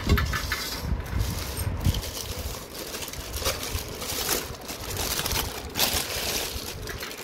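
Handling noise from a stainless steel idli steamer and its plates being moved about. It comes as scattered light knocks with rustling between them.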